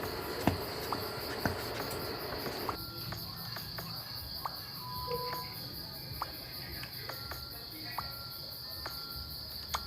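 Crickets chirring steadily, with scattered sharp clicks and ticks over them. A low hiss stops about three seconds in.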